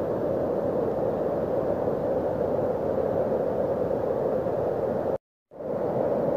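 Muddy rainwater flood stream rushing steadily through a washed-out road crossing, a dense even rush of water. The sound cuts out for a moment about five seconds in, then resumes.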